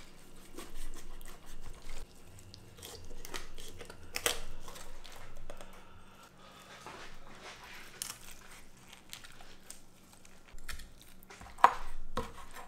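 A large sharp knife cutting along a raw chicken's backbone, crunching and tearing through the rib bones in irregular strokes, with a sharp crack near the end.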